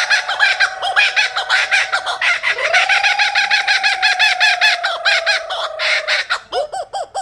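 Laughing kookaburra calling: a fast run of repeated cackling notes over a long held note. It thins to a few slower notes near the end.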